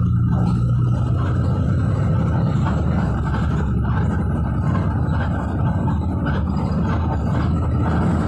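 City bus in motion, a steady low rumble of engine and road noise heard from inside the passenger cabin.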